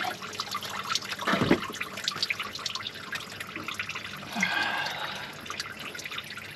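Dark, old engine coolant dripping and splattering out of the water pump opening as the pump comes off, in quick irregular drips. There is a dull knock about a second and a half in and a brief heavier trickle around four and a half seconds.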